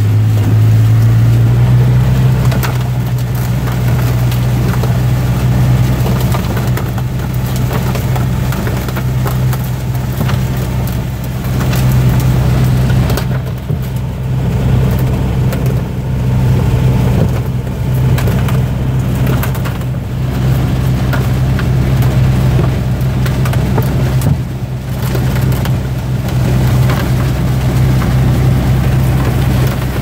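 John Deere 9570 harvest machine running under load, heard from inside its cab: a loud, steady low engine drone with a clatter of machinery over it. The drone's pitch steps up slightly about a second and a half in.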